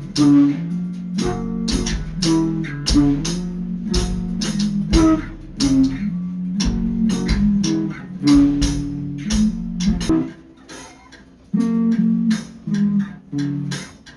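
Background music of plucked guitar over a bass line, in quick repeated notes. About ten seconds in, the bass drops out and the music thins briefly before picking up again.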